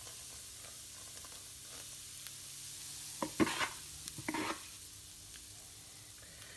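Hot oil and flour sizzling softly in a skillet at the start of a roux. A few brief scrapes of a stirring utensil come about three and four seconds in.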